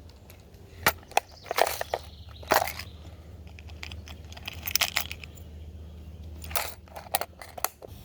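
Irregular sharp clicks, clatters and a few short crunches of small hard objects being handled, over a steady low background.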